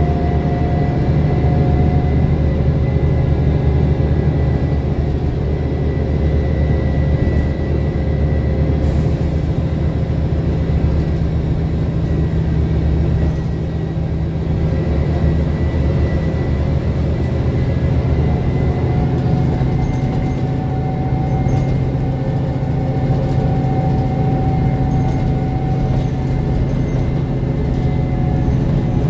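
Mercedes-Benz Conecto city bus under way, heard from the passenger cabin: the steady drone of its OM 457 hLA inline-six diesel together with road noise. About 13 seconds in the sound dips briefly and the engine note settles at a different pitch.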